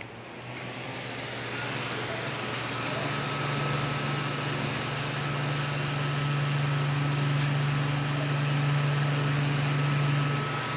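Arno Silence Force electric fan running: a steady motor hum with a thin higher whine over the rush of air, growing louder over the first three or four seconds and then holding steady.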